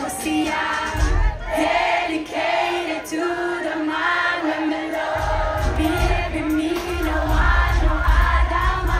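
Live dancehall concert music over an outdoor PA, with a crowd singing along. A heavy bass line comes in briefly about a second in and then runs on from about five seconds in.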